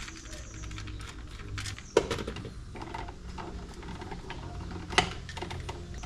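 Light clicks and taps of hands working stiff 6-gauge copper wire into the terminals of a NEMA 14-50R outlet, with two sharper clicks about two and five seconds in.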